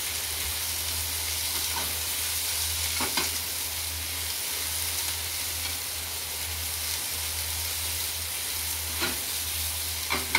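Food sizzling steadily in a hot frying pan, with a few light clicks of a utensil against the pan and a steady low hum underneath.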